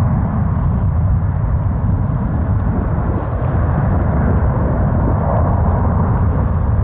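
Boeing 777-300 jet airliner departing at takeoff thrust: a loud, steady, even rumble of jet engine noise.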